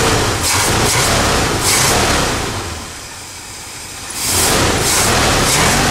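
Ford 400 V8 revved by hand at the four-barrel carburetor's throttle linkage. It is held up at first, falls back toward idle about three seconds in, then is blipped up again just after four seconds. The engine has just been retimed on a retrofitted GM HEI distributor and runs peppy.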